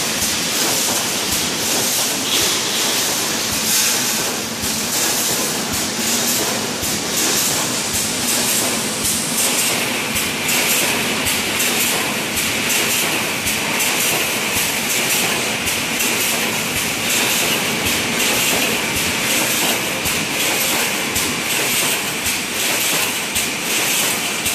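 Wire mesh welding machine for 5–12 mm construction (BRC) mesh running: a steady mechanical clatter of rapid clicks over hiss. A higher hiss joins about halfway through.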